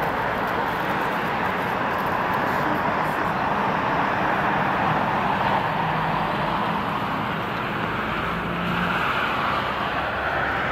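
Boeing 747-8I on final approach, its four GEnx jet engines making a steady rushing noise at approach power.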